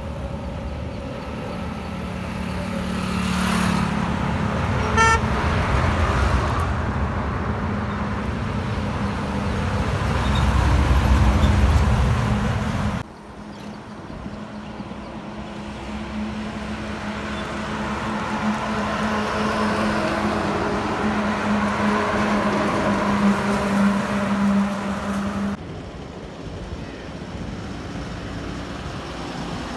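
Loaded lorries driving past on a highway: engines running and tyre rumble, loudest as one passes close near the middle, with a short horn toot about five seconds in. The traffic sound changes abruptly twice where the footage is spliced.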